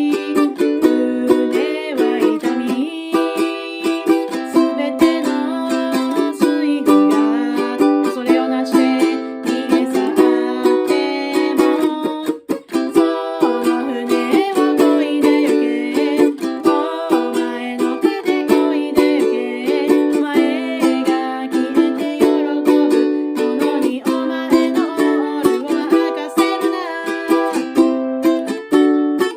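Ukulele strummed in a steady rhythm, with a woman singing along to it.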